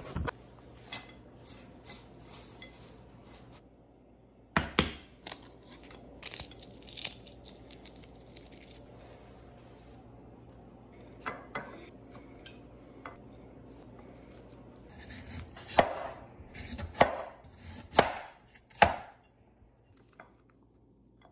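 Kitchen food-preparation sounds: scattered sharp knocks and clatters of ceramic plates and raw food on a countertop, with quiet stretches between. Four louder knocks come close together near the end.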